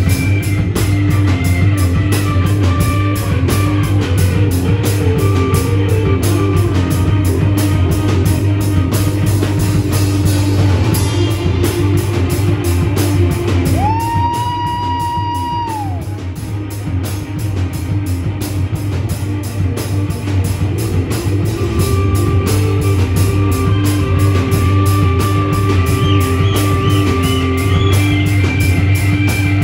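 A live rock band playing: a drum kit keeps a steady beat on the cymbals under guitar and keyboard. About halfway through, a single high note swells in and is held for about two seconds.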